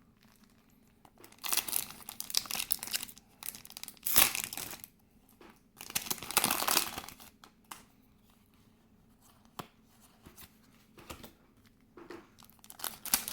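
Foil Pokémon booster pack wrapper crinkling and tearing in three bursts, loudest around four seconds in, followed by light scattered rustles and clicks.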